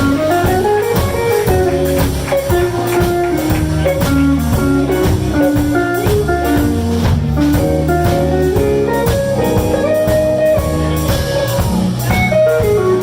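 Live blues band playing an instrumental passage: a guitar runs melodic lead lines over bass and drums.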